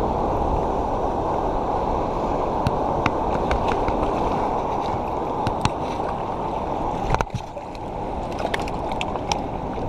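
Steady rush of turbulent water below a dam, with scattered light clicks over it.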